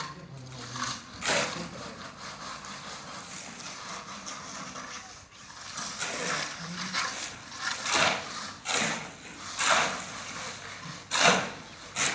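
A series of short scraping strokes on a hard surface: one about a second in, then several in quick succession in the second half.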